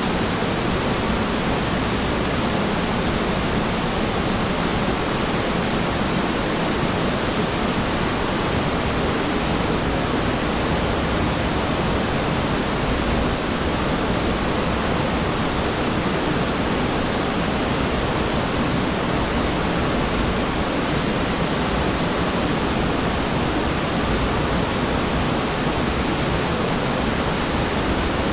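Running water in a cave, a loud, steady, unbroken rush.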